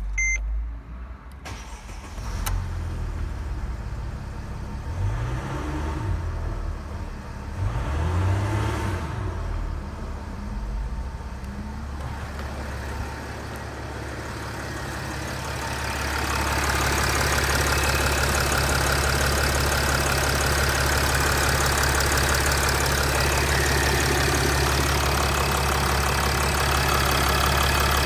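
Mercedes OM642 3.0 V6 common-rail turbodiesel starting and then idling. About halfway through it gets louder, with a steady diesel clatter, as heard at the open engine bay.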